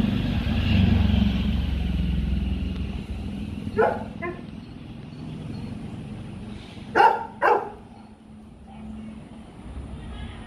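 A dog barks twice, faintly, about four seconds in, then twice more, louder, about seven seconds in. A low rumble fills the first three seconds and fades out before the barks.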